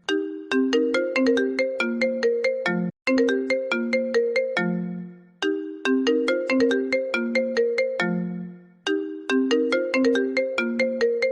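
iPhone ringtone playing: a short melody of quick notes that ends on a lower, longer note, repeated about every three seconds.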